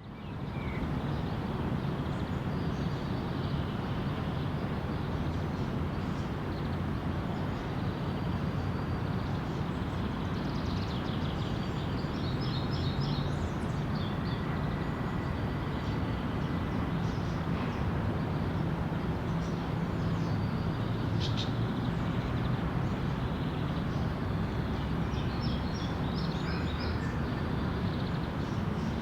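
City park ambience: a steady rumble of nearby traffic, with small birds chirping on and off above it, in clusters about halfway through and again near the end.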